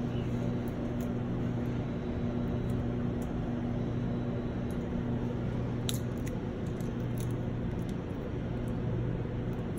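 Small air sampling pump running with a steady hum, set to draw 15 litres per minute. Light clicks of tape being peeled from a plastic Air-O-Cell cassette come over it, the sharpest about six seconds in.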